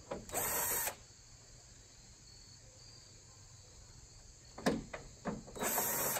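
Cordless drill with a socket running in two short bursts, about a third of a second in and again near the end, backing out the bolts that hold a car's chrome grille garnish under the hood. A few sharp clicks come shortly before the second burst. Faint insect chirping sounds throughout.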